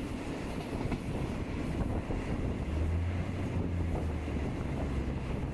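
Low, steady rumble of a moving train, with wind on the microphone; a deep hum grows stronger from about three seconds in and eases off again about a second and a half later.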